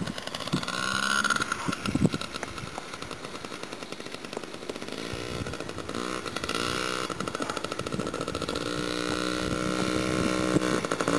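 Small single-cylinder engine of a child's mini dirt bike being ridden, its pitch rising and falling with the throttle and growing louder as it comes closer near the end. A few sharp knocks in the first couple of seconds.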